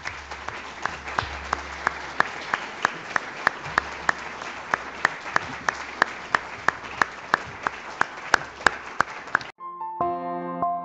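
Audience applauding, with one pair of hands clapping close by in a steady beat of about three claps a second. The applause cuts off suddenly near the end, and soft keyboard music begins.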